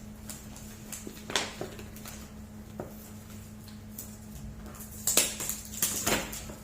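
Gift wrapping being handled and opened: a few scattered taps and crinkles, then a burst of rustling about five seconds in. A steady low hum runs underneath.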